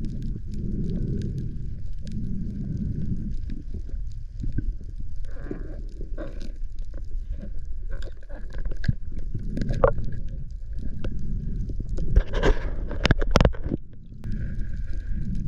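Water rushing and gurgling with scattered clicks and knocks, picked up through an action camera's waterproof housing. A louder burst of splashing noise comes about twelve seconds in.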